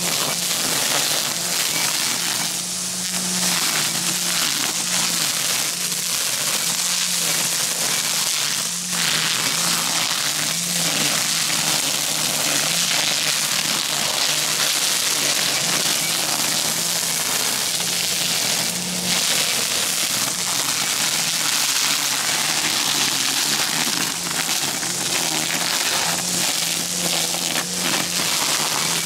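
String trimmer running steadily at cutting speed, its line crackling and chopping through dense tall grass and weeds, over a steady engine hum that wavers slightly.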